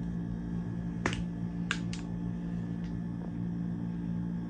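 A few sharp plastic clicks and taps from handling makeup brushes and an electric brush cleaner: one about a second in, two close together shortly after, and two fainter ones later. A steady low hum runs underneath.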